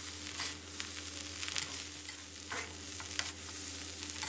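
Soy sauce fried rice with vegetables sizzling in a metal wok as a metal spatula stir-fries it, scraping and tossing against the pan several times. This is the last stage of the dish, the vegetables being stir-fried through the rice until cooked.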